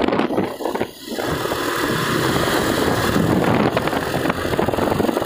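Motorcycle on the move, filmed from the bike: wind rushing and buffeting over the microphone along with engine and road noise, dipping briefly about a second in.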